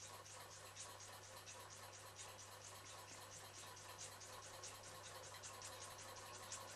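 1929 Meccano toy steam engine running under steam, its cylinder exhausting in a faint, fast, even ticking of puffs, about eight a second.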